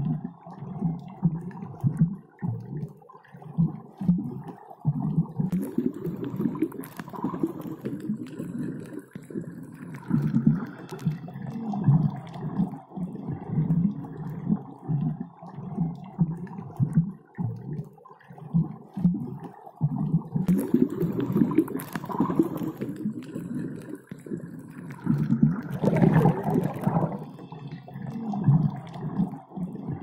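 Underwater ambience of irregular low gurgling and bubbling, with a few louder watery swells along the way.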